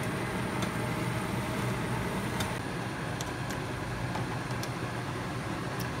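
Steady low hum with a hiss at the stove while a pot of water boils, with a few faint clicks.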